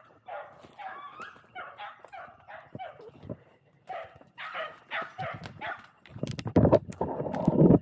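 Beagles baying and yelping in a run of short, repeated cries while hunting rabbit. Near the end a loud burst of rustling, crackling noise drowns them out and then stops abruptly.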